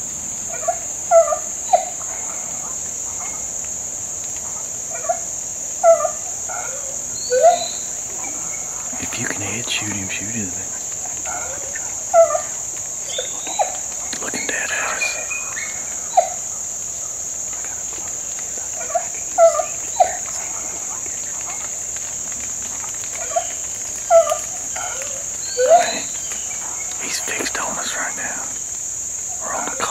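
Steady high-pitched insect chorus, with short pitched calls, often in twos and threes, recurring every few seconds above it.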